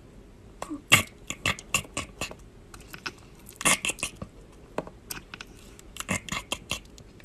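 Calico cat chattering: three runs of rapid clicking a couple of seconds apart, the excited chatter a cat makes while fixed on prey it can't reach.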